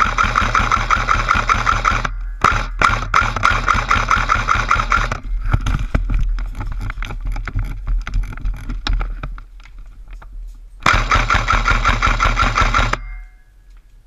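Airsoft rifle firing on full auto in long bursts with a rapid rattling whine: one burst breaks off about two seconds in, a second runs to about five seconds, and a third comes near the end. Between the bursts there are scattered clicks and knocks.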